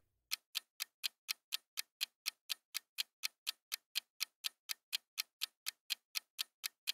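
Clock-tick sound effect of a quiz countdown timer, ticking evenly about four times a second while the answer time runs down.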